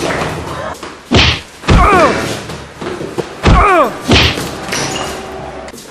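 Several heavy thumps of a staged scuffle, bodies being shoved and bumping into one another, the last two each followed by a brief falling squeal.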